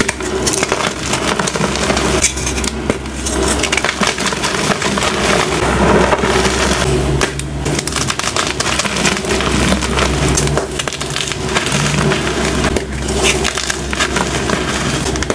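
Hands crushing and crumbling blocks of dyed gym chalk, a dense run of crunching and crackling as the blocks break apart and grind into powder.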